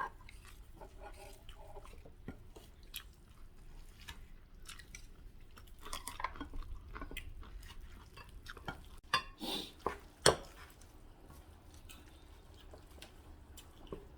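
Eating and mixing at a table: scattered light clinks and scrapes of chopsticks and spoons against bowls, with chewing, and a few sharper clinks about nine to ten seconds in.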